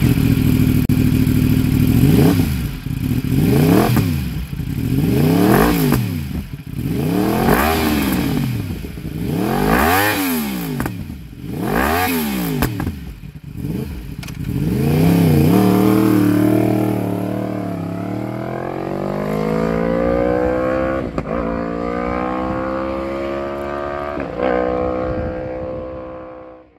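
Yamaha R1's crossplane inline-four through an Akrapovic exhaust, revved hard at a standstill in a string of sharp throttle blips about every two seconds. About fifteen seconds in, it pulls away and accelerates through several upshifts, fading as it goes.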